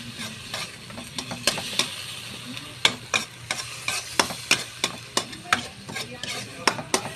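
Metal spatula scraping and tapping against a wok-style pan in irregular strokes while corned beef sautés in oil, with a steady sizzle underneath.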